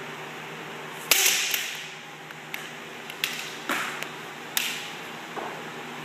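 Bamboo kendo shinai striking in sparring practice: a string of sharp cracks, the first and loudest about a second in.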